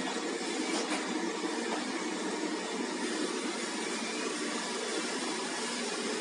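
Robot vacuum running with a steady whirring hum, with no change in level.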